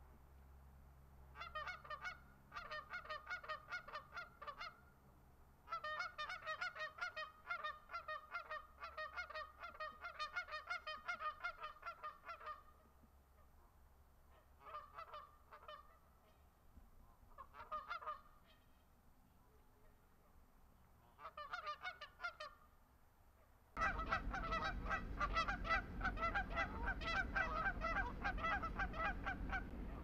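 A flock of geese honking in quick, overlapping calls, coming in bouts of a few seconds with short pauses between. The last six seconds hold louder, continuous honking over a low rumbling noise.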